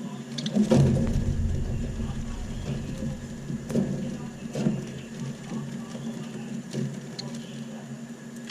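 Budgerigars chattering, with a low rumbling thump a little under a second in and a few sharp clicks scattered through.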